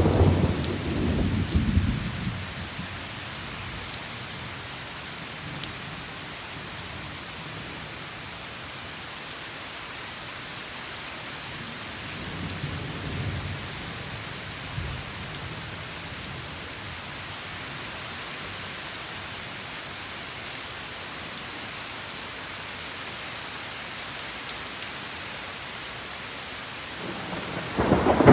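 Steady rain with rolling thunder: a rumble fading away over the first two seconds, a fainter one about halfway through, and a louder one building near the end.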